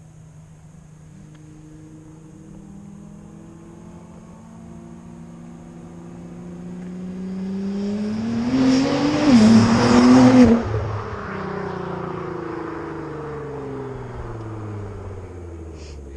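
Nissan GT-R R35's twin-turbo V6 with a new aftermarket exhaust, accelerating hard toward and past the listener. The engine note rises as it approaches, is loudest about ten seconds in, then drops in pitch and fades as the car pulls away.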